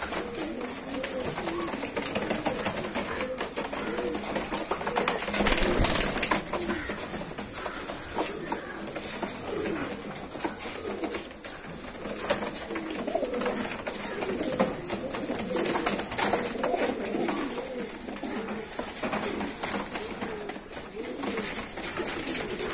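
Several domestic pigeons cooing in repeated wavering low calls, with wing flapping, loudest in a flurry about five to six seconds in.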